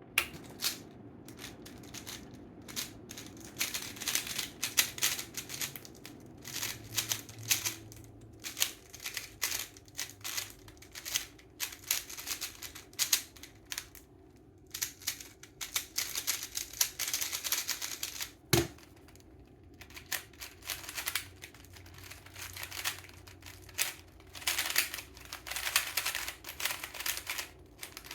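Plastic speed cubes being turned rapidly by hand: fast runs of clicking, clattering layer turns broken by short pauses. About two-thirds of the way through there is one sharper single knock.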